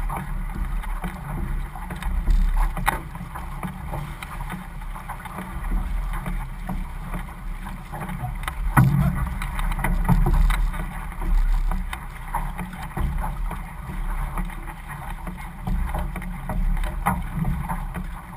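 Water rushing and splashing along the hull of a six-person outrigger canoe under way, with paddle blades dipping and pulling in irregular splashes. There is a steady low rumble from water and wind on the close-mounted camera's microphone.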